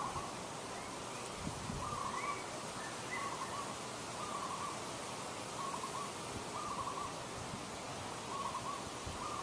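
Short animal calls, each a quick cluster of notes, repeated about once a second over a steady background hiss.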